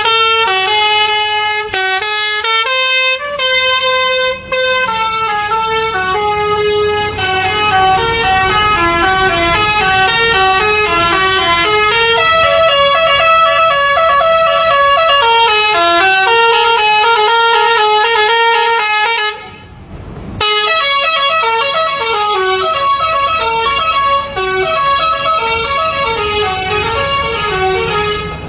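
Basuri telolet horn on a tour bus, a multi-note musical air horn, playing a long melody of stepping notes. It breaks off briefly about twenty seconds in, then carries on.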